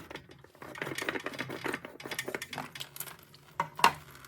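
Hard plastic water-filter housing parts being handled: a quick run of small clicks and rattles, then a few sharper clacks near the end.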